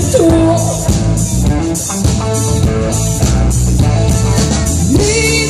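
Live rock band playing an instrumental passage of a song: electric guitars, bass guitar and drum kit. A sung note trails off at the start, and the singer's voice comes back just before the end.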